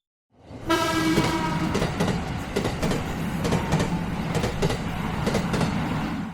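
A train passing: a brief horn about half a second in, then a steady rumble with rail clacks, fading away at the end.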